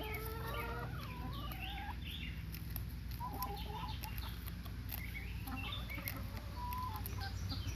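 A flock of chickens clucking and calling, many short overlapping calls from several birds, with a steady low hum underneath.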